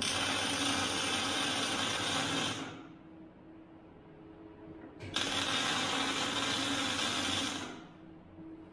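Plasma cutter cutting steel, two steady hissing cuts of about two and a half seconds each with a pause between, over a low steady hum.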